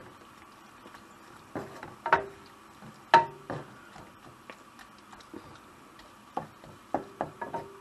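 Cooking spoon knocking and scraping against a non-stick frying pan as vegetables are stirred: irregular knocks, the loudest about three seconds in, some with a short ring from the pan.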